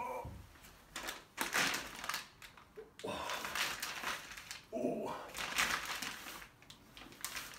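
A man groaning briefly twice, between noisy breaths and rustling, as he straightens up stiffly, acting out a sore back.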